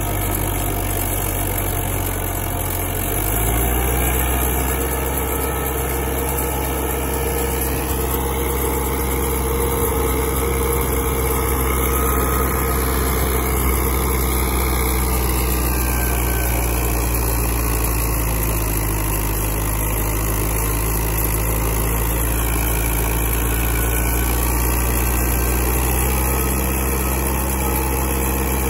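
Massey Ferguson 385 tractor engine running steadily, driving a super seeder; its note steps up slightly about three seconds in and then holds.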